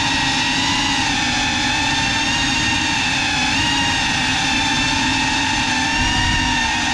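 Motors and propellers of a GEPRC Cinelog 35 ducted FPV cinewhoop whining at a fairly even throttle, several pitches sounding together with only slight wavering.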